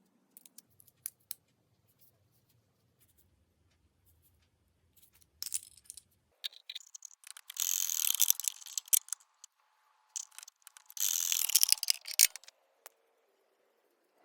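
Shears cutting sheet copper: a few light clicks and handling knocks, then two stretches of rapid snipping about a second and a half long, the first starting about seven and a half seconds in, the second about eleven seconds in.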